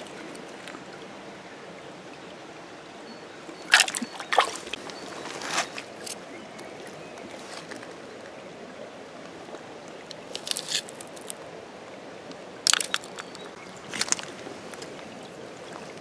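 Shallow river water trickling steadily over stones, with a handful of sharp clicks as pebbles and pottery shards knock together while being picked through by hand, the loudest about four seconds in and again near thirteen seconds.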